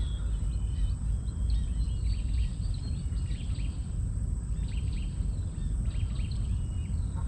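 Small birds chirping in short calls over a steady low rumble.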